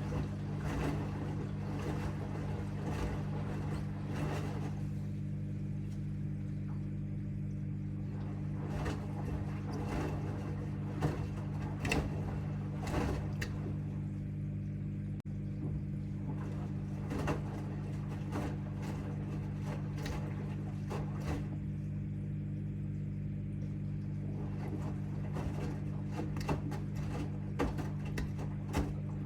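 AEG 8000 Series front-loading washing machine running its cycle with three bath mats in the drum. A steady low motor hum carries on throughout, with irregular knocks and splashes as the load tumbles.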